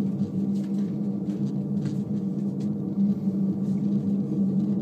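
Steady low roar of gas burning at a ruptured gas pipeline, the escaping gas jet feeding a huge fire. A few faint clicks sit over it.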